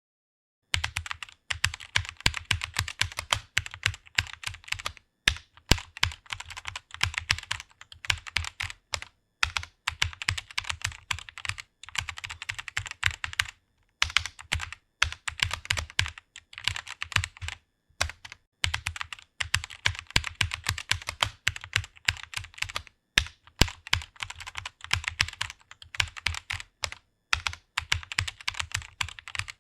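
Fast typing on a computer keyboard: rapid runs of keystrokes, starting just under a second in and broken by short pauses every few seconds.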